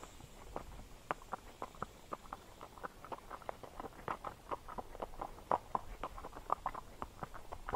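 A ridden horse's hooves striking the trail in an uneven run of clopping steps, several a second, getting louder about halfway through.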